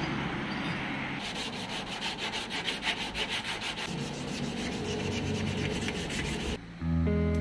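Sandpaper rubbed back and forth by hand over a Perodua Myvi's primed door panel, a rasping scrub in a fast, even rhythm of strokes from about a second in, as the body is prepped for a respray. Guitar music comes in right at the end.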